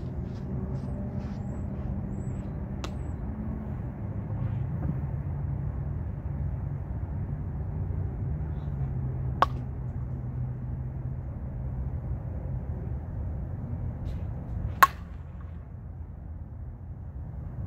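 A Louisville Slugger Steven Lloyd slowpitch softball bat hits pitched balls twice, with two sharp cracks about five seconds apart; the second is the louder. A steady low rumble runs underneath.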